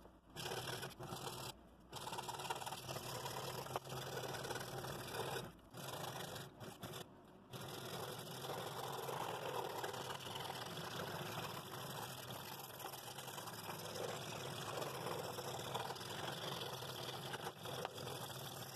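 Scroll saw running with a number 5 blade moving up and down through a wooden board as it cuts interior fretwork openings. The sound drops out briefly a few times in the first eight seconds, then runs on steadily.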